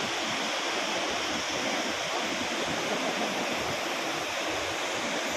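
Steady rush of a large waterfall's falling water, an even, unbroken noise.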